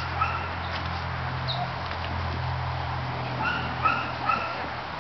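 Dog yipping: short, high barks in quick sets of two or three, once at the start and again a little past halfway, over a steady low hum.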